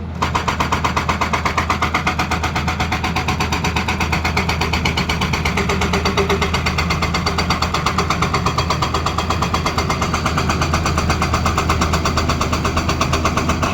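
Hydraulic breaker on a Tata Hitachi excavator hammering stone in rapid, even blows, over the steady running of the excavator's engine.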